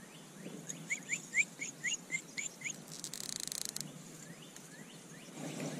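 A songbird calling: a quick series of about nine short upslurred chirps, roughly four a second, over faint outdoor background noise.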